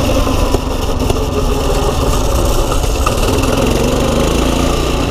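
Small pit bike engine running steadily while the bike is ridden along, with a constant low rumble underneath.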